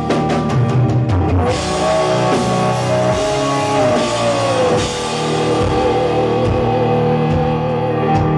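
Live rock band playing an instrumental passage with distorted electric guitars, bass and a drum kit, and no vocals. A lead guitar line slides down in pitch about four seconds in.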